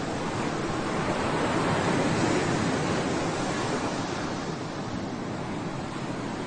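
Sea waves washing onto the shore, one wash swelling about two seconds in and easing off slowly, with wind on the microphone.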